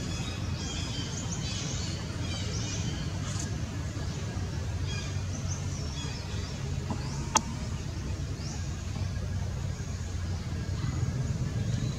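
Outdoor ambience: a steady low motor-like hum, with short high chirping calls scattered through it and a single sharp click about seven seconds in.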